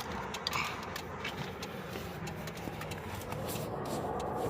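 Car engine idling steadily, with a few small clicks of handling nearby.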